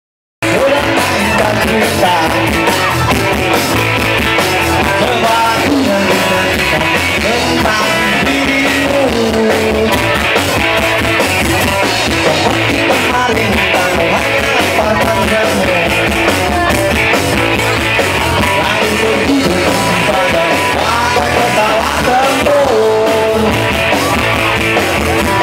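Live rock band playing loudly: electric guitars and drum kit, with a lead singer carrying the melody, heard from the crowd in front of the stage.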